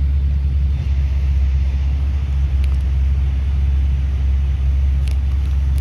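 Ford Excursion's engine idling close by: a steady deep rumble, with a couple of faint clicks over it.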